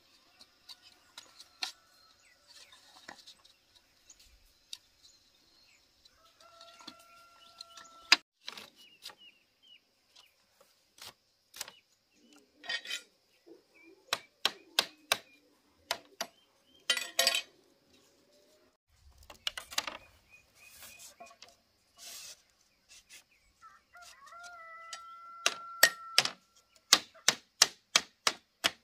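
Rooster crowing twice, each a held call about a second and a half long, among many sharp knocks and taps from hand work; the knocks come in a quick run near the end.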